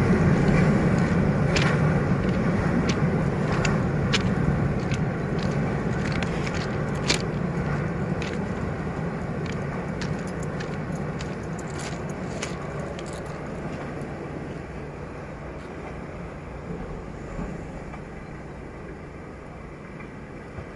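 Train crossing a bridge and moving away: a steady low rumble with a hum that slowly dies down, broken by scattered sharp clacks.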